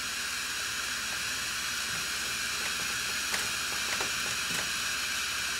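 Small handheld gas torch burning with a steady hiss as its flame heats a furnace thermocouple.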